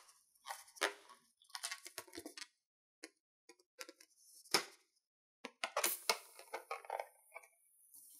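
Rubber balloon full of slime being squeezed and handled, giving irregular crackly rubbing sounds in short bursts, with a sharp snip of scissors cutting the balloon open about halfway through.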